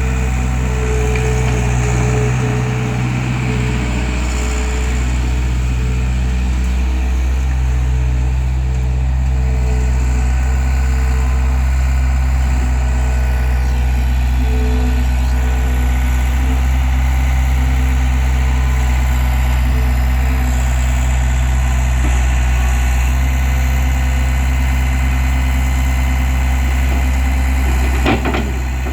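Case 1845 skid steer's diesel engine idling steadily, with a brief knock near the end.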